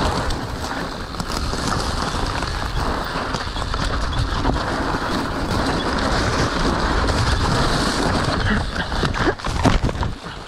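Mountain bike running down a dirt trail: a steady rush of wind on the microphone over tyre and bike rattle, with a few sharp knocks near the end.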